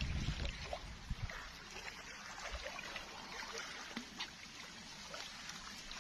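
Faint water lapping and trickling, with many small light ticks. A low rumble fades out in the first second.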